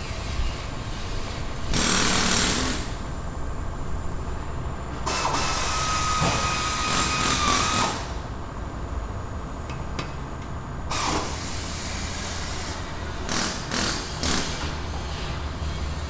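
Auto repair shop ambience: power tools starting and stopping in short bursts over a low steady hum. One tool runs for about three seconds midway with a steady whine, and a few short bursts come near the end.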